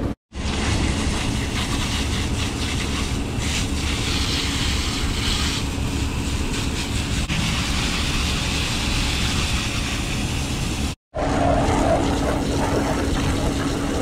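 Rooftop HVAC unit running with a steady mechanical rumble of fans and airflow. The sound drops out briefly twice, and after the second break a steady low hum sits under the rumble. The unit's condenser coil is heavily caked with dirt from lack of maintenance.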